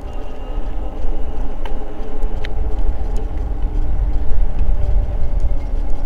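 Ride noise of an Eahora Juliet e-bike rolling over asphalt: a steady low rumble with a steady hum over it. A couple of light ticks come about two seconds in.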